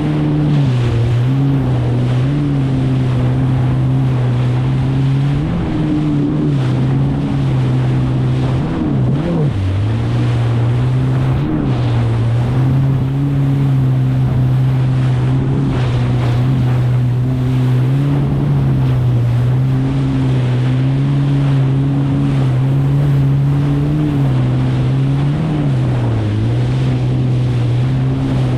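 Kawasaki STX 160X personal watercraft's four-cylinder four-stroke engine running steadily at cruising speed, with water and wind noise as it rides through chop. Its pitch dips and wavers briefly about nine seconds in and again a couple of seconds before the end.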